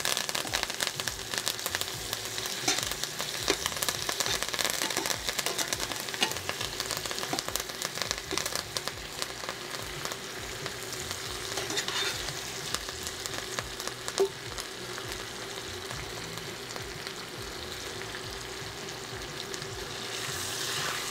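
Steak searing in hot butter with rosemary, thyme and garlic in a stainless steel sauté pan: steady sizzling and spattering crackle, busiest and loudest in the first few seconds and settling somewhat later, with a few sharper clicks.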